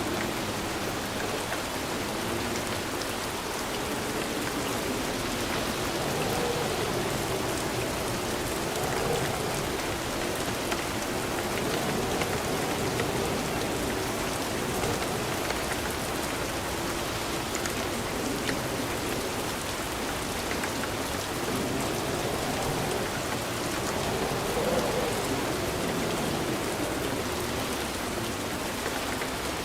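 Steady rain falling and pattering on surfaces, an even, unbroken hiss with no breaks.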